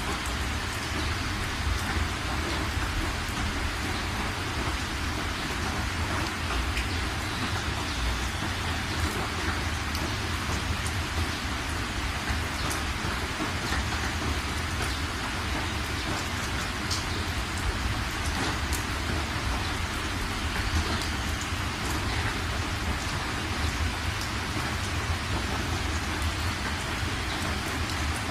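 Heavy rain hitting a car's windshield and roof, heard from inside the moving car: a steady hiss of rain with scattered drop ticks over a constant low road rumble.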